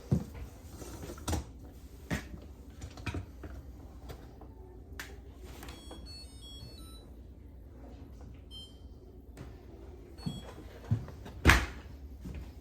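Scattered knocks and clicks of handling, with a few short high beeps in the middle and one louder thump near the end.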